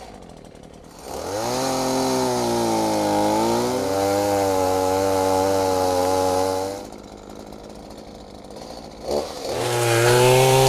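Chainsaw revving up about a second in and cutting into a hollow pine trunk, its pitch dipping briefly mid-cut. It drops back to idle about seven seconds in, then revs up again near the end. The saw is cutting higher up the trunk to find where the hollow holding the bee colony ends.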